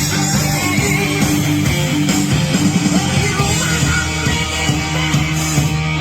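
Rock music with a distorted electric guitar, playing steadily throughout.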